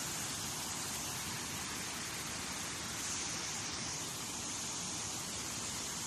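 Steady rushing of muddy floodwater in a jungle stream channel: a constant, even hiss with no change in level.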